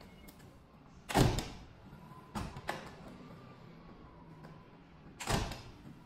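Aluminium-framed glass folding door leaves pushed shut: a thud about a second in, two lighter clicks a little after two seconds, and another thud a bit after five seconds.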